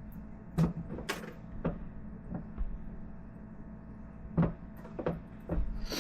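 Irregular knocks and clicks of small objects being handled and set down on a workbench: a few in the first two seconds, then a denser cluster from about four seconds in. A faint steady hum runs underneath.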